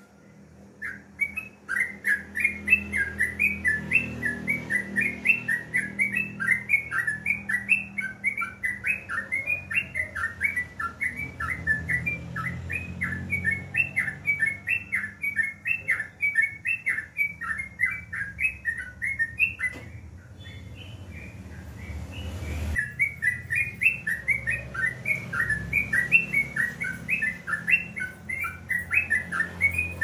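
Caged yellow-vented bulbul (trucukan) singing a fast, unbroken run of repeated chirping notes, about four a second. It stops for a few seconds about two-thirds of the way through, then starts again.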